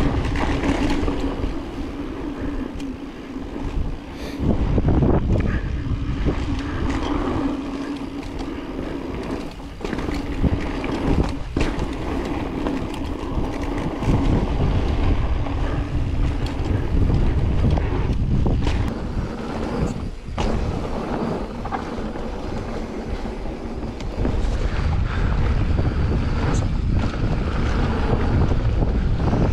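Wind rushing over the camera microphone while a mountain bike rolls down a dirt trail, with frequent knocks and rattles from the bike over rough ground.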